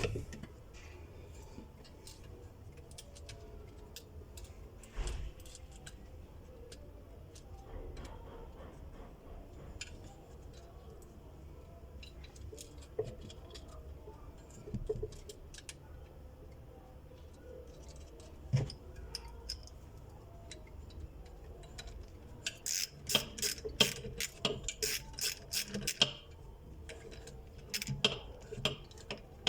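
Light clicks and metallic taps of hand work on a sewing machine's clutch motor, with a quick run of clicking and rattling for about three seconds near the end.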